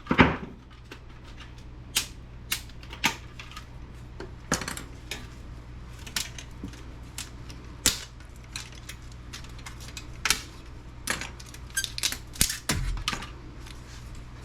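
Irregular sharp clicks and clinks of small metal and plastic laptop parts being handled and set down during disassembly, a dozen or more light knocks at uneven spacing. A steady low hum runs underneath.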